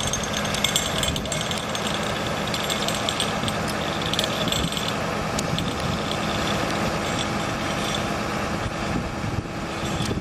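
Engine-driven machinery running steadily, with a constant hum under dense mechanical noise.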